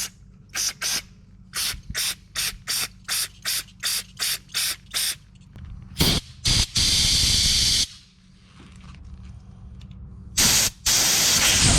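Compressed-air blow gun blowing out carburetor jets and passages: a rapid string of short puffs, about three a second, then a longer blast lasting about a second, and two more blasts near the end.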